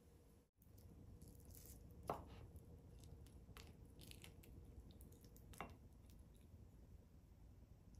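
Near silence with a low hum, broken by a few faint scattered clicks and two sharper light knocks, about two seconds in and again past five seconds.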